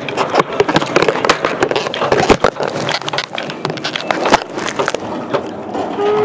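Dense, irregular crackling, rustling and knocks close to the microphone, with a few sharper knocks about two and a half and four and a half seconds in.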